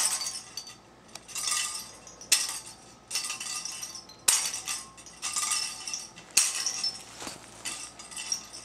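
Metallic jingling from a small object shaken by hand, in about ten short bursts with sharp starts, roughly one a second.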